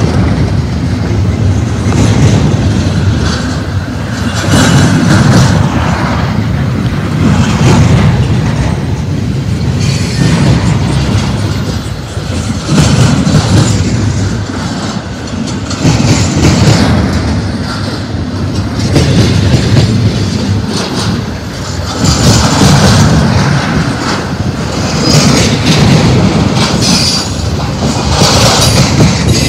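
Loud double-stack intermodal freight train rolling past: steel wheels on rail, with clacks as the trucks pass over the rail joints. A rumbling rush swells and fades every two to three seconds as the cars go by.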